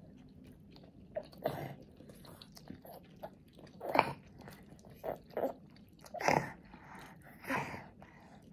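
A toddler eating: a metal spoon scraping and knocking on the plate as he scoops food, with close chewing and mouth sounds between the scoops. The loudest knock comes about four seconds in.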